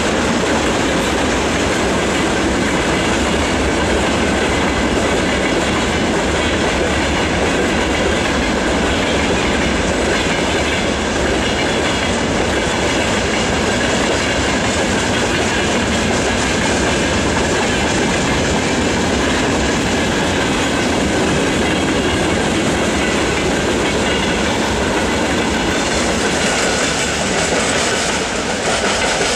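Freight train wagons (tank cars and open wagons) rolling steadily past at close range, wheels clacking over the rail joints with a faint steady squeal.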